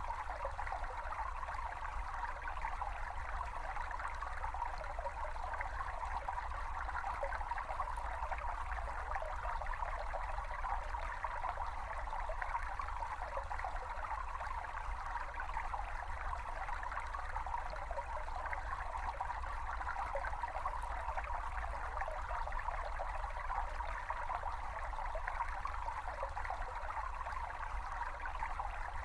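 A small brook babbling and trickling steadily over stones, recorded outdoors as a natural sound, with a faint low rumble underneath.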